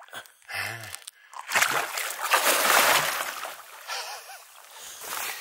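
A big Murray cod, released by hand at the side of the boat, kicks away and splashes the water. The splashing lasts about two seconds, then dies down into sloshing.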